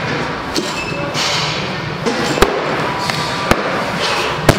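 Heavily loaded barbell with bumper plates clanking during a clean and jerk, over steady gym background noise. There are three sharp clanks, the loudest near the end as the bar comes down toward the platform.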